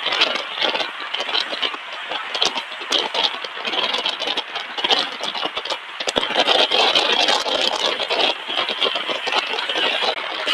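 Ride noise inside a moving car: a dense rush of road and wind noise, full of quick rattles and knocks.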